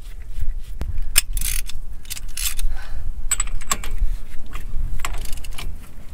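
Hand ratchet wrench clicking in short bursts, with metal clinks, as the spindle nut is turned on a trailer axle hub.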